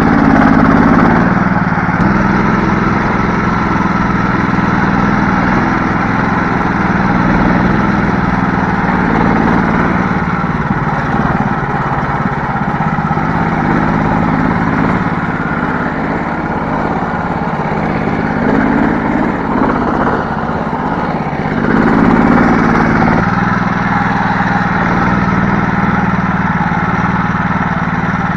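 Karakat all-terrain vehicle's engine running continuously while driving, its note rising and falling a few times with the revs.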